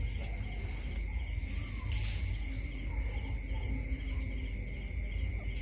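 Crickets chirping steadily in a night-time insect chorus, over a constant low rumble, with a few faint short squeaks.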